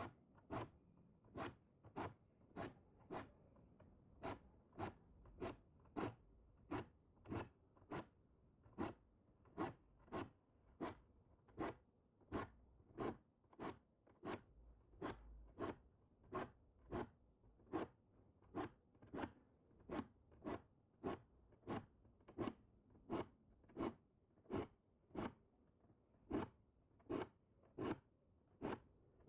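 Diamond file stroking across the teeth of a Gyokucho ryoba Japanese saw: short scraping strokes in a steady rhythm, a little under two per second, as each tooth is sharpened.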